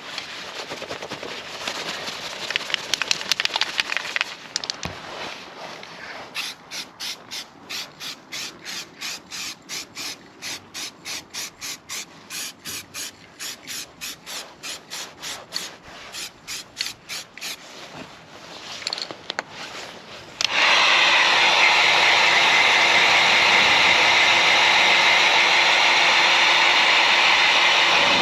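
Aerosol can of grey primer being shaken, its mixing ball rattling in a steady rhythm of about two to three shakes a second. About two-thirds of the way through, a hot air gun switches on and runs steadily, loud and even.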